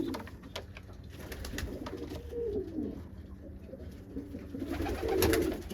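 Domestic homing pigeons cooing, low gliding coos with a louder coo near the end, and a few light clicks.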